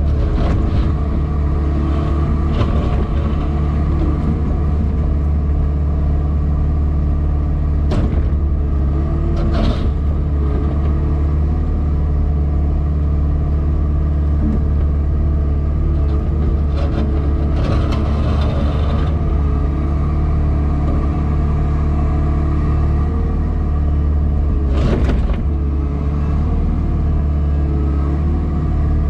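Diesel engine of a JCB Pothole Pro wheeled excavator running steadily under load while the digging arm works, heard from inside the cab. A few brief knocks or clatters stand out about 8, 10 and 25 seconds in.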